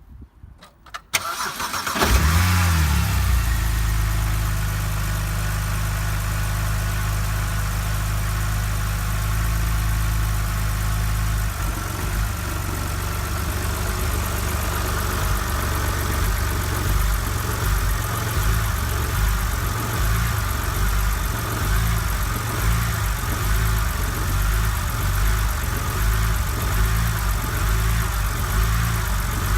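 BMW 130i straight-six cranked and starting from cold about two seconds in, then idling; from about twelve seconds in the idle turns uneven. This rough cold-start running comes with the check-engine light on, which the owner takes for a faulty oxygen sensor.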